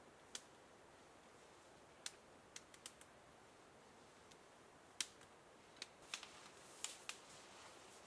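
Dry twigs and kindling snapping and crackling in scattered sharp clicks as a small fire is started. The clicks come more often over the last few seconds.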